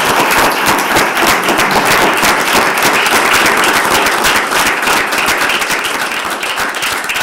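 Audience applauding: many people clapping together at a steady, loud level that eases slightly near the end.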